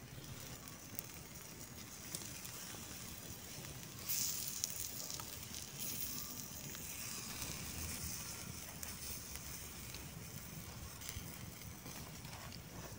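Small wood fire crackling under a rolled pork belly on a wire grill, with fat sizzling: a steady hiss dotted with sharp crackles, getting louder and brighter about four seconds in.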